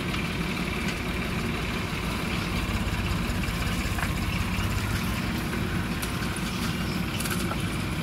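Diesel engine of a JCB backhoe loader running steadily while the backhoe arm digs soil and lifts the bucket.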